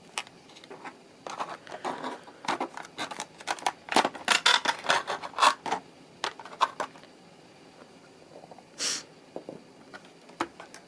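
Cardboard and plastic packaging of a diecast model airliner being handled and opened: a busy run of scratches, scrapes and clicks for several seconds, thinning out, with a brief hiss near the end.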